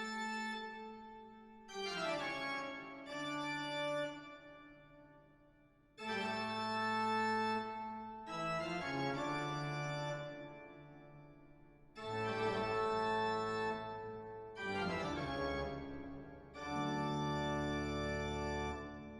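Background music: slow keyboard chords with an organ-like sound, each held and fading, a new chord every two to three seconds.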